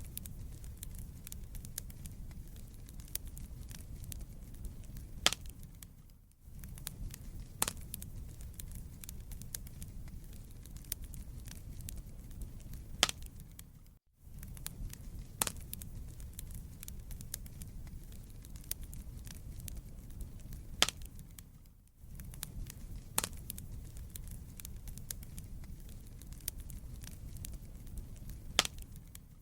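Wood fire burning in a fireplace: a steady low rumble with irregular sharp crackles and pops. The sound drops out briefly about every eight seconds.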